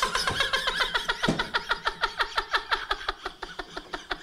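A person laughing hard in a long run of quick, rhythmic ha-ha bursts, growing fainter toward the end.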